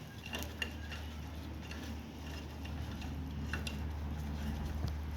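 A few scattered light metallic clicks and taps of a wrench and socket on the wheel nuts as they are run up by hand, over a steady low hum.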